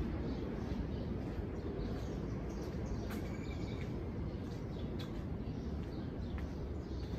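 Outdoor street ambience: a steady low rumble, with birds chirping faintly now and then.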